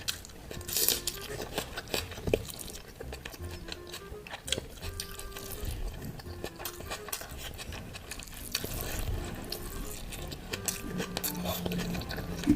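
Close-up eating sounds of biryani being mixed and eaten, with scattered wet clicks, crackles and clinks on the plate, over soft background music.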